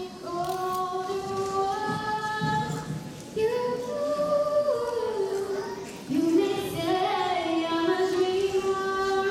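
Children singing a slow melody in long held notes, in three phrases.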